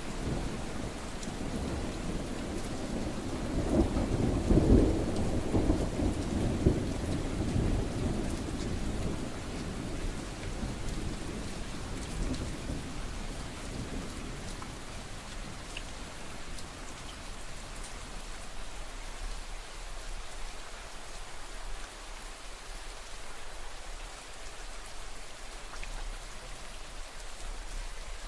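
Steady rain falling, with a low roll of thunder that swells in the first few seconds, peaks around five seconds in and dies away by about halfway, leaving just the rain.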